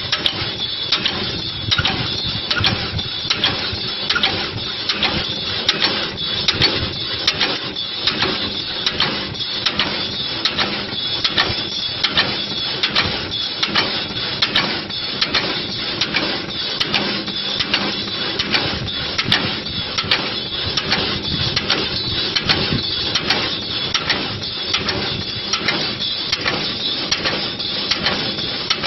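Wood wool (excelsior) machine running and shaving wood into strands: a steady mechanical clatter with an even, fast rhythm of cutting strokes, about three a second, over a constant motor hum.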